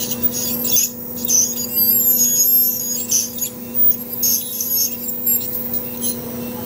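Water-cooled ultrasonic dental scaler working tartar off a dog's canine at the gum line. It gives high-pitched squeals that shift in pitch and come and go, over a steady low hum.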